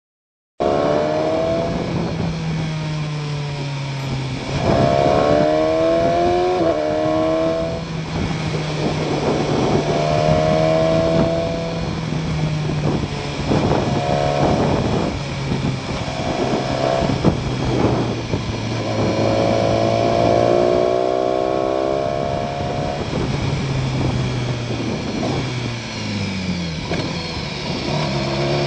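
BMW S1000XR's inline-four engine running on the move, starting about half a second in. It revs up several times with a climbing pitch and drops back off the throttle between, over steady wind and road noise.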